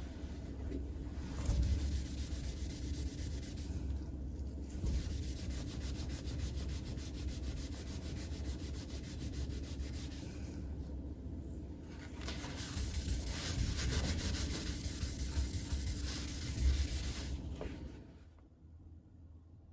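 Rapid back-and-forth scrubbing of a hard surface during cleaning, in bouts with short pauses about four seconds in and around eleven seconds, stopping near the end.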